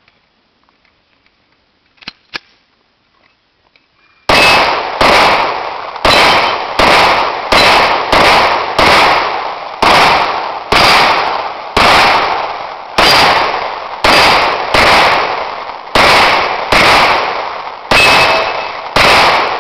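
Full-size 9mm Glock pistol fired at a steady pace, about seventeen shots roughly one a second, starting about four seconds in. The string empties its 17-round magazine.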